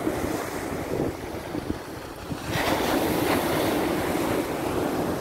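Sea surf breaking and washing up a sand and shingle beach, with wind buffeting the microphone. A louder wave breaks about two and a half seconds in, and its hissing wash carries on to the end.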